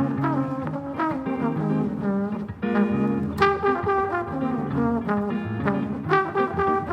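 Jazz quintet playing: a trombone line over double bass, drums, vibraphone and guitar, with moving bass notes and drum hits throughout.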